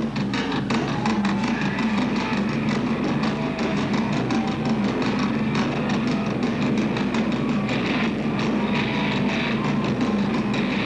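Rock band playing live at full volume, with electric guitar over a steady, fast drumbeat.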